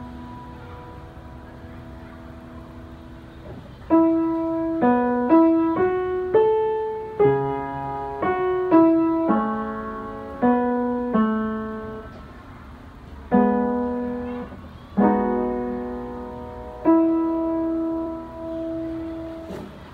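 Upright piano played solo: a held chord fades away, then a slow melody of single notes and chords starts about four seconds in. It closes on three spaced-out chords, the last one held and left to ring out.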